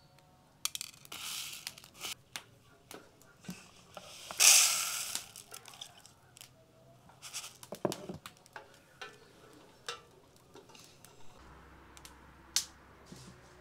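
Dried yellow split peas being picked over by hand in a plastic bowl, with scattered small clicks and rattles, then tipped out in one loud rush into a wooden bowl about four seconds in.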